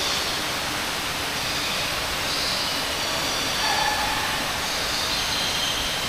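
Steady rushing noise of an indoor tropical aviary, with a few faint bird calls above it, around two and four seconds in.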